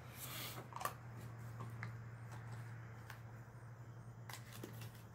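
Faint handling noises: a small plastic bag holding scope mounting rings rustling, with a few light clicks and knocks as the rifle scope is set down on the wooden table. A steady low hum runs underneath.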